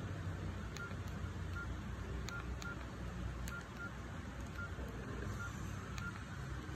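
Nokia 6680 keypad tones: about nine short, high beeps at uneven intervals, each one a key or joystick press while scrolling through the phone's menus, some with a light click of the key.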